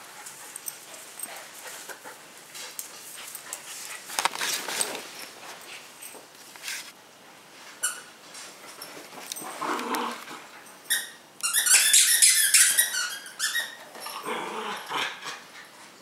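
Pet dogs playing, with rustling and scuffling and a loud burst of rapid high-pitched squeaks about eleven seconds in.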